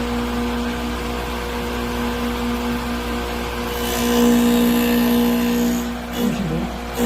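Drill-sharpening grinder running with a steady motor hum. About four seconds in it gets louder and hissier for a second or so, as the wheel grinds a drill bit.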